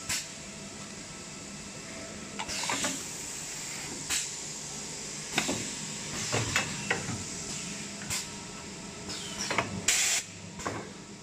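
Multi-roll toilet paper packing machine running with a steady hum. Over it come repeated short, sharp hisses and clacks at irregular spacing, the air exhausts of its pneumatic cylinders as it bags and pushes out a pack of rolls. The loudest burst is near the end.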